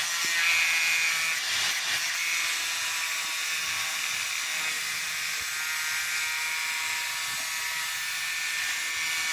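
A small high-speed power tool running steadily: a high whine over a hiss, with little low end.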